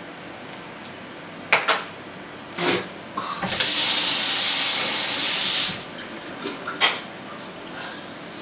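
A kitchen tap running hard for about two seconds, after two short sounds from the person reacting to the drink. A single sharp knock near the end.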